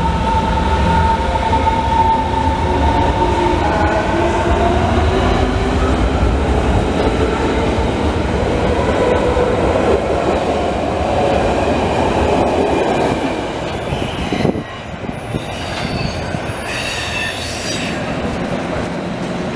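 Berlin S-Bahn electric train pulling away and speeding up, its traction motors whining in several tones that rise steadily in pitch over a running rumble of wheels on rail. About three-quarters of the way through, the sound cuts abruptly to a quieter train sound.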